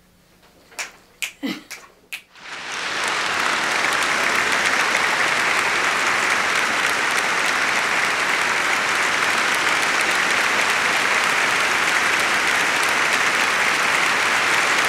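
A few brief clicks, then crowd applause that swells in about two seconds in and goes on steadily and densely to the end.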